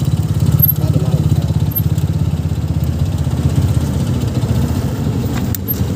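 Small motorcycle engine running steadily while riding, a dense low pulsing, with wind noise on the microphone.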